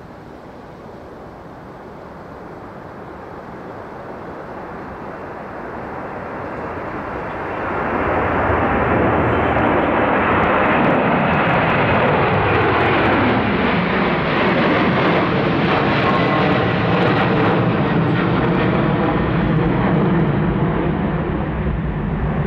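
Airliner's engines passing close by: the noise swells for several seconds, then holds loud, with tones gliding down in pitch as the aircraft goes past.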